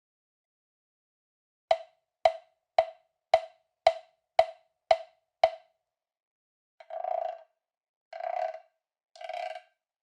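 LP Jam Block LP-1209 (purple) plastic percussion block struck with a stick: eight sharp, evenly spaced hits about two a second, then three longer sounds of about half a second each.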